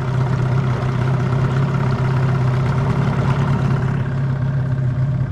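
Small boat outboard motor running steadily with an even hum.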